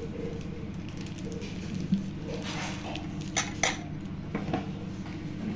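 A few light clinks and knocks of kitchenware, as dishes or metal utensils are handled, over a steady low hum.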